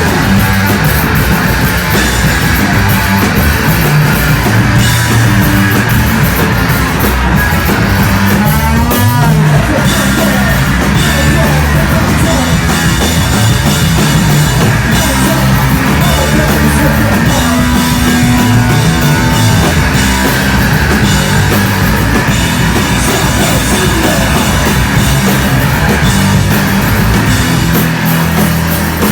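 Loud, distorted punk rock: a band playing, with a pounding drum kit and fuzzed electric guitar. About nine seconds in there is a gliding pitch sweep.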